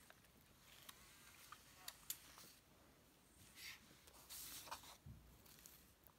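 Near silence, with a few faint light ticks and a couple of brief soft rustles of paper and card being handled.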